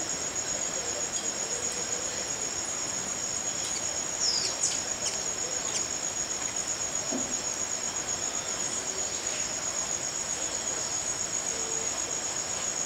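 Steady, high-pitched chorus of rainforest insects, a fast even trill that never lets up. A few short high chirps cut in about four to six seconds in.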